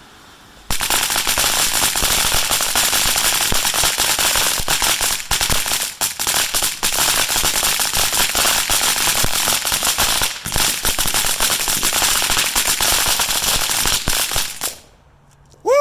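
A long string of firecrackers going off in a dense, rapid crackle of pops, starting about a second in and stopping abruptly shortly before the end.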